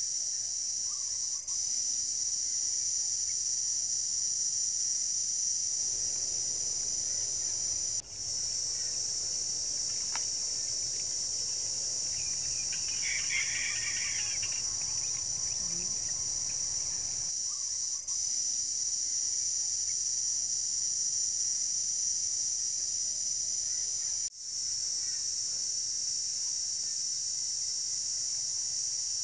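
A steady, high-pitched insect chorus, dropping out for an instant several times. About halfway through, a brief chirping call sounds over it.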